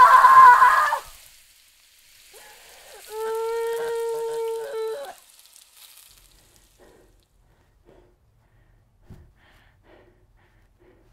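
A young woman screaming, the scream breaking off about a second in. It is followed by a shorter, wavering crying wail from about three to five seconds in, then faint sobbing breaths.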